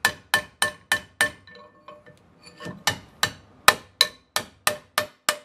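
Hammer blows on a steel drift driving a worn urethane bushing out of a Club Car Precedent golf cart's steel front A-frame, each strike sharp and ringing. About three strikes a second, with a break of about a second partway through.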